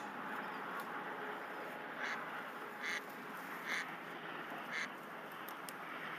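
A duck quacking: five short, separate quacks spread over the first five seconds, over a steady background hiss.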